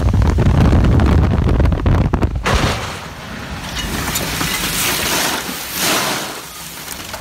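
A semi's raised dump-trailer bed crashing into a highway overpass, heard from inside a following car: a heavy rumble for the first two and a half seconds, then a hiss with crackling patter as dust and debris shower the windshield.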